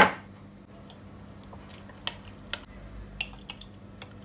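A spoon scraping peanut butter off into hot milk inside a glass French press: a few soft, scattered clicks and squelchy scrapes against the glass.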